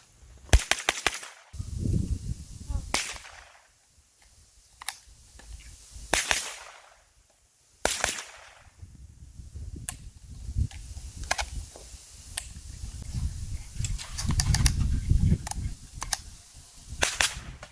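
Gunfire from firearms being shot in training: a rapid string of about six shots about half a second in, then single shots and short strings scattered throughout. A low rumble sounds in between.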